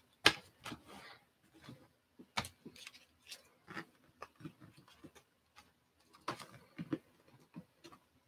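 Hard plastic trading-card holders clicking and tapping against each other and the table as they are picked up and handled: a string of irregular sharp clicks, the sharpest just after the start and a cluster near the end.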